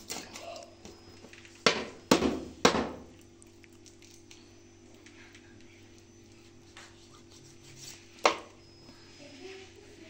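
A kitchen knife clacks against a steel tray while raw chicken is cut into pieces. There are three sharp clacks close together about two seconds in, and one more near the end.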